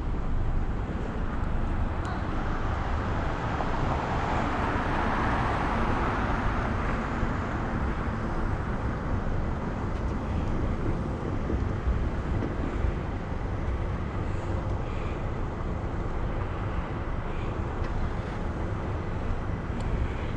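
Wind rushing over a bicycle-mounted camera microphone while riding, with road traffic noise that swells and fades over the first several seconds as cars pass alongside.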